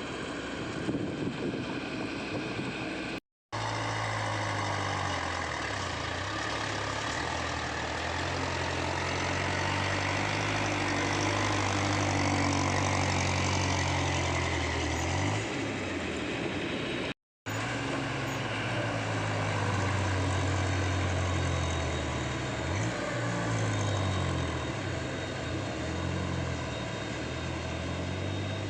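Heavy diesel machinery engine running steadily, its pitch dipping and rising a few times as the load or throttle changes. The sound cuts out completely for a split second twice.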